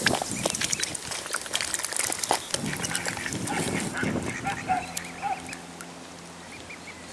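Mallard quacking a few short times, a little under five seconds in, among rapid clicks of waterfowl bills dabbling for food at the water surface, with faint high peeping.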